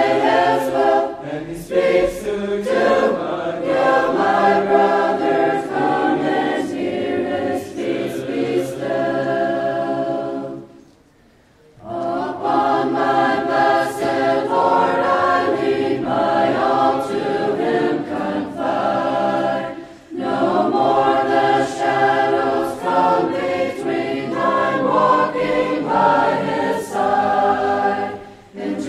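A choir singing a hymn in several voice parts, breaking off briefly between phrases about eleven seconds in.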